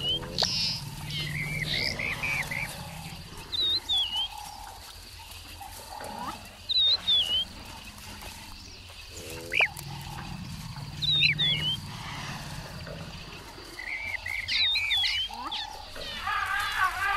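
African bush elephants giving low rumbles, two of them about two seconds long and some nine seconds apart, while birds call again and again with short high chirps.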